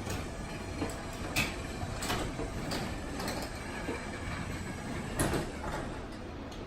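Garage door moving along its tracks: a steady rumble with several sharp rattles and clicks.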